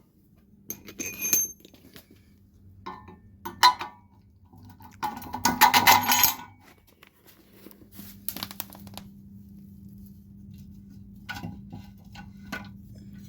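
Loose steel washers and bolt hardware clinking and jingling as they are picked through by hand, with a few separate clinks and a busier clatter of metal pieces about five seconds in.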